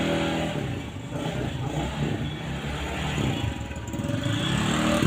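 Motorcycle engine running, its pitch rising and falling about a second in and again near the end.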